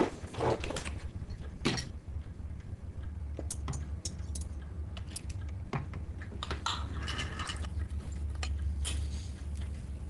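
Small, sparse clicks and taps of tableware over a steady low hum, with a brief hissing rustle about seven seconds in.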